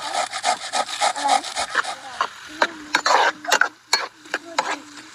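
A kitchen utensil scraping rhythmically inside a cooking pot, about five strokes a second. About halfway through it changes to slower, louder scrapes of a wooden spatula stirring food in a pan, over a steady low hum.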